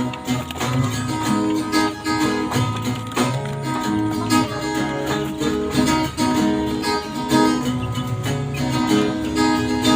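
Background music: a plucked acoustic guitar track.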